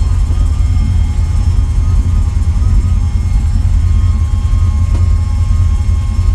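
Custom-built truck's engine idling, a steady low rumble heard from inside the cab.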